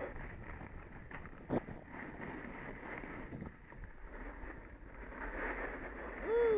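Snowboard sliding over snow, a steady rushing scrape mixed with wind on the microphone, with a single knock about a second and a half in. Near the end a person gives a short shout that falls in pitch.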